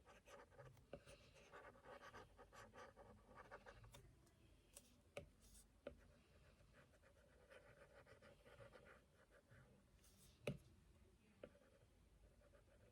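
Faint scratching of drawing strokes as a drawing tool moves over the drawing surface, busier in the first few seconds and sparser after. A few sharp taps are heard, the loudest about ten seconds in.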